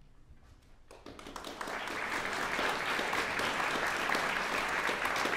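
Audience applause breaking out about a second in, building quickly to a dense, steady clapping of many hands.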